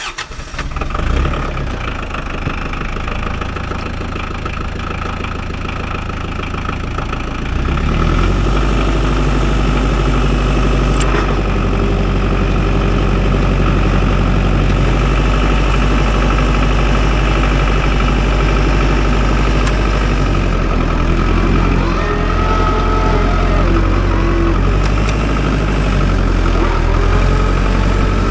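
Case IH Farmall 45A compact tractor's diesel engine running just after being started, idling steadily. About eight seconds in it grows louder and heavier and runs on at that level, with a single click a few seconds later and a wavering whine rising and falling for a few seconds in the second half.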